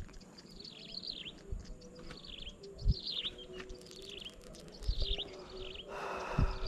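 A bird calling over and over in short falling chirps, many of them in pairs, with a faint steady hum underneath. A few dull low thumps break in, the loudest about three and five seconds in, and a brief rush of noise comes near the end.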